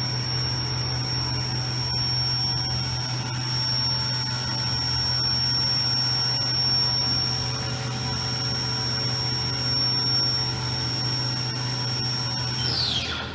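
Haas VF-3YT vertical machining center's spindle running at steady speed with a high whine over a lower hum, then slowing down, its whine falling steeply in pitch and dying away near the end.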